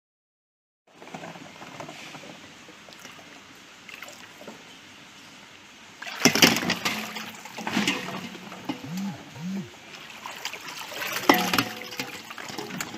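Shallow floodwater sloshing and splashing as someone wades through it, with irregular knocks. The sound starts about a second in and grows louder and busier from about halfway through.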